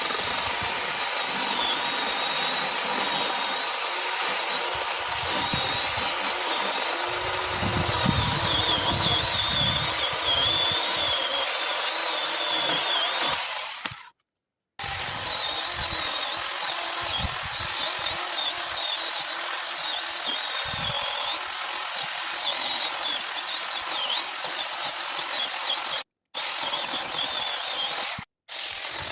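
Leaf blower running steadily: a rush of air with a high, wavering motor whine. It fades and stops for about half a second midway, then cuts out twice briefly near the end.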